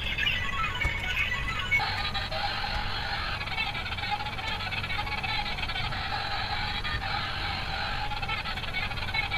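Battery-powered light-up toy car playing its built-in electronic tune through a small tinny speaker, with its motor and plastic gears whirring and rattling as it drives across the floor. The tune changes about two seconds in and then holds steady.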